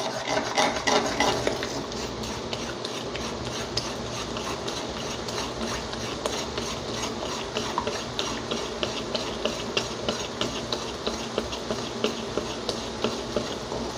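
A steel spoon rapidly stirring and scrambling raw eggs in a hot aluminium kadai, clicking and scraping against the metal pan with quick, even strokes, several a second.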